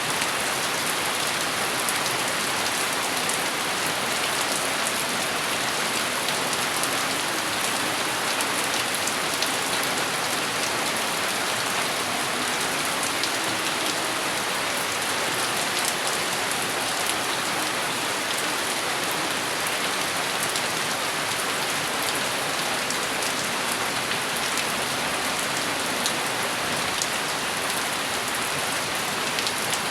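Steady rain falling, an even hiss made of many small drop hits that stays constant throughout.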